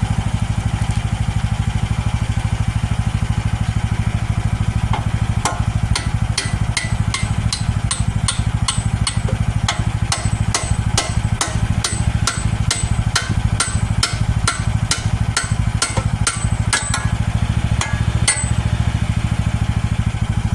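AGT H13R mini excavator's engine idling steadily while a hammer strikes the bucket's pins and bolts, a run of metal-on-metal blows about two a second that starts about five seconds in and stops near the end.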